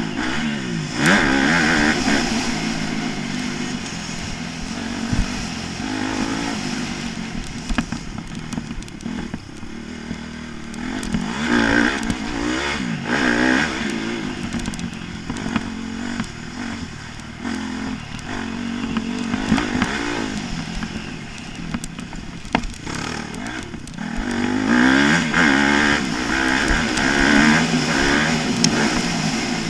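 Motocross bike engine, heard from on board, revving hard and falling off again and again as the rider accelerates, brakes and shifts around the track, with the loudest pulls near the start, in the middle and near the end. Sharp knocks and rattles from the bike hitting bumps break through now and then.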